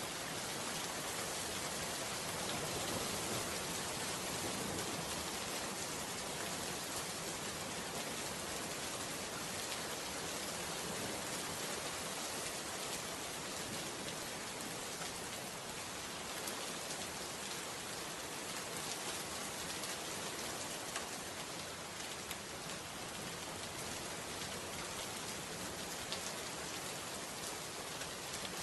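Steady rain falling: an even, unbroken hiss of drops.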